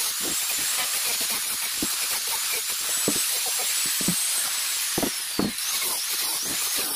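Handheld electric disc sander with a 60-grit disc running against plywood: a steady hiss of abrasive on wood over a high motor whine. The whine falls in pitch about five seconds in and then climbs back, and there are a couple of knocks around then.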